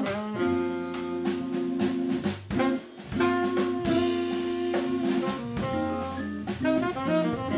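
Jazz organ trio playing: a Crumar Mojo organ holds chords over low bass notes while a drum kit keeps up busy hits, with tenor saxophone playing.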